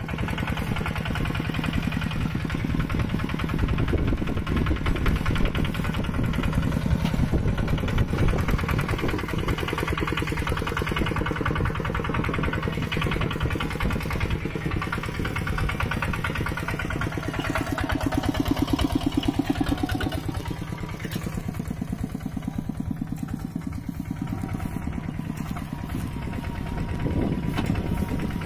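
Mini tractor engines running with a rapid, even chugging, swelling louder for a couple of seconds about two-thirds of the way through.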